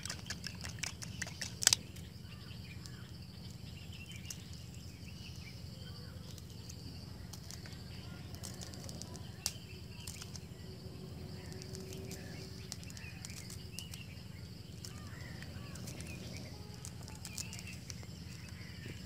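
A plastic fork beating raw eggs in an aluminium-foil bowl gives quick clicking and scraping taps for about the first two seconds, the loudest near the end of that run. After that a low steady hum carries on, with a few faint scattered ticks.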